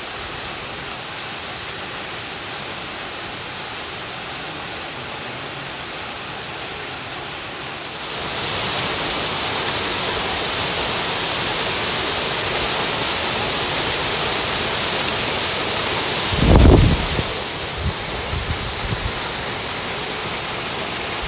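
Rain-fed waterfall pouring down a rock cliff: a steady rush of falling water, which grows louder and brighter about eight seconds in. About two-thirds of the way through comes a brief low rumble.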